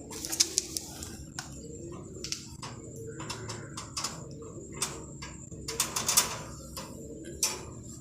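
Homing pigeons cooing in low, wavering, repeated calls, crossed by many short sharp clicks and knocks, the loudest about half a second in and just after six seconds.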